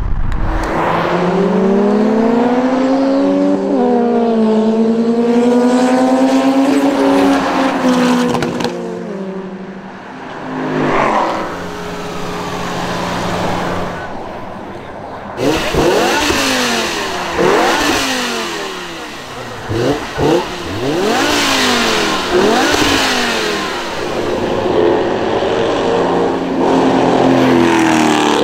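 BMW M5 E60's V10 engine revving hard: first a pull with the pitch climbing and dropping at a gear change, then about halfway a run of quick sharp throttle blips roughly a second apart, and near the end a rising pull again.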